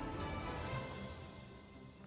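Background music with held notes, fading out over the second half.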